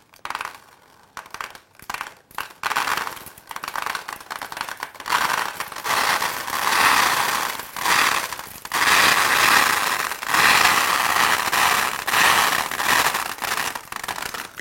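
Dry rice grains poured onto a sheet of paper as a foley imitation of rain. A few scattered ticks come first, then from about two and a half seconds in a dense, steady hiss of falling grains that swells and eases in waves.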